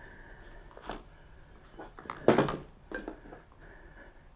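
Metal clinks of a hand wrench being worked onto an e-bike's axle nut, with one louder clank about two seconds in and a few lighter taps around it.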